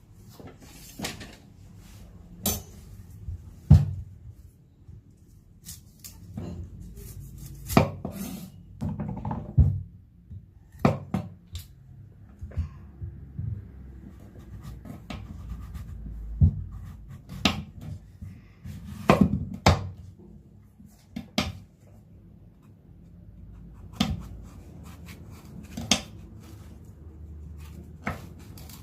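Kitchen handling sounds: irregular sharp knocks and taps, some in quick pairs, with scraping and rubbing between them, like ingredients being cut and utensils set down.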